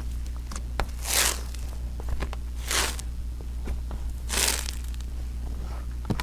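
Cloud cream slime (slime thickened with instant snow) being squeezed and kneaded by hand, making soft crunchy, crackling squishes that swell and fade about every second and a half, with small sticky clicks in between.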